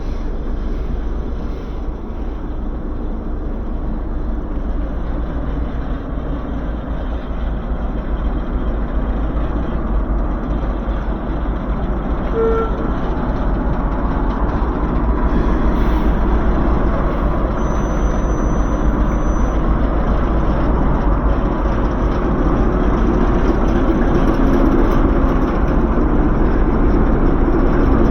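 A train running on the heritage line, its steady noise slowly growing louder, over a constant deep rumble.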